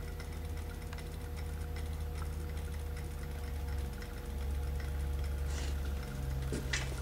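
Whelen Edge strobe-and-LED light bar running, a steady low electrical hum with faint, fairly regular ticking as the strobes fire. A sharper, louder click or rattle comes near the end.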